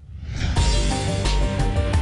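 Closing theme music of a TV programme fades up over the first half-second, with a steady low beat and short repeated notes.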